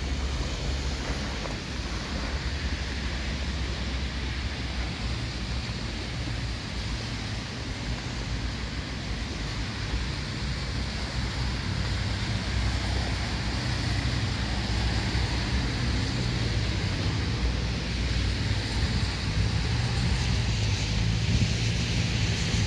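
Wind buffeting the microphone: a steady, uneven low rumble under a rushing hiss, growing a little louder in the second half.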